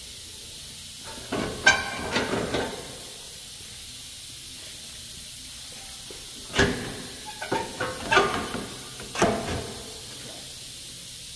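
Metal underbody splash shield being unhooked from its front hooks and lowered: two bursts of sheet-metal knocks, clanks and scrapes, the first about a second in and the second a few seconds later, over a steady hiss.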